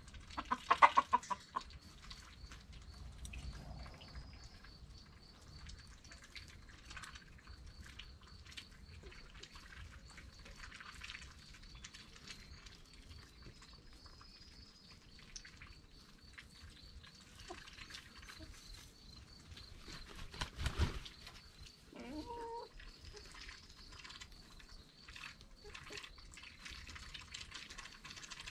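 Backyard chickens (Black Sexlink, Australorp and Cuckoo Marans hens with a Silver Spangled Hamburg rooster) clucking softly and pecking at grass. A quick run of loud calls comes about a second in, and a sharp knock followed by a short falling call comes about two-thirds of the way through.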